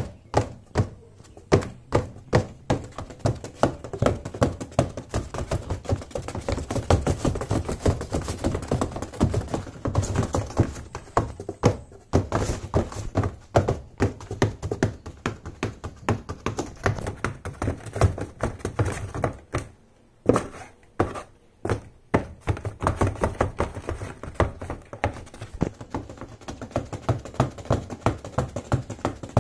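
High-heeled pumps tapping fast on the floor of a cardboard box: hollow thunks, several a second, with a brief pause about twenty seconds in.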